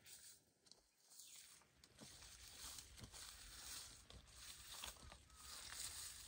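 Faint rustling of orange-tree leaves and branches, with small clicks and snips, as oranges are cut from a low tree with hand pruners.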